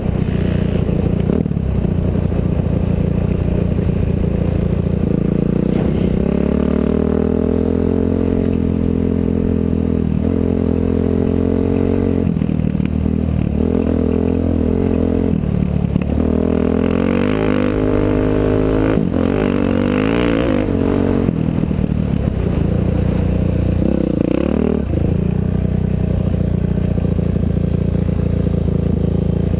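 Off-road race vehicle's engine running hard, its pitch climbing and dropping again and again as the throttle is worked, with several brief dips.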